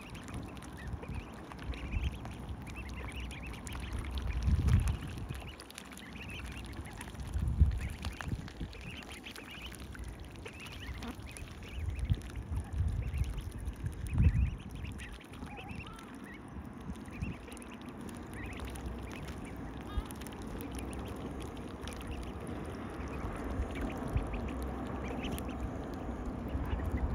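Young ducklings squeaking with excitement: many short, high peeping calls overlapping throughout, with low rumbles now and then.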